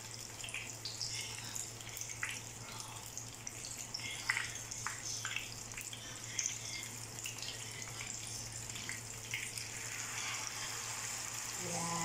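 Battered sweet potato strips frying in hot oil in a frying pan: a steady sizzle with scattered pops and crackles.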